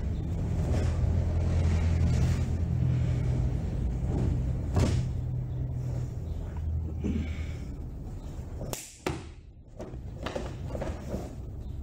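Karate kata movements: sharp swishing snaps of a cotton karate gi on strikes and bare feet on foam mats, the loudest snap about five seconds in. A steady low rumble lies under the first two thirds, and the sound drops out briefly about nine seconds in.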